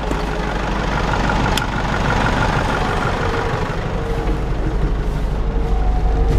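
Cat 432E backhoe loader's diesel engine running steadily, with a single sharp click about a second and a half in.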